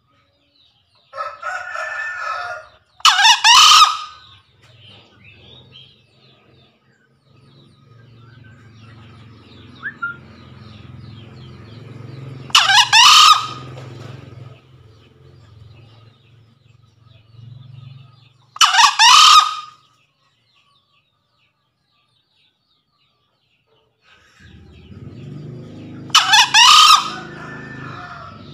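Male green junglefowl crowing: four short, loud crows, each under a second, several seconds apart, with a softer call just before the first. This is the male's call to a rival.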